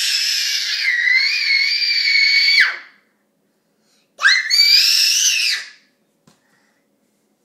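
A toddler's very high-pitched squeals: one long, wavering squeal that stops about three seconds in, then a shorter one about a second later.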